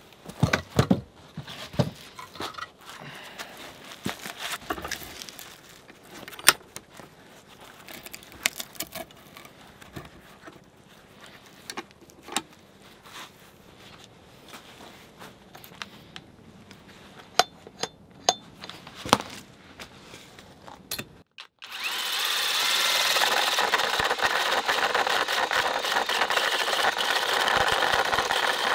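Scattered knocks and clicks of a log being handled and clamped in a bench vise. After about twenty seconds a cordless drill starts running a round tenon cutter into the end of the log, a loud steady drilling noise as the cutter shaves the wood.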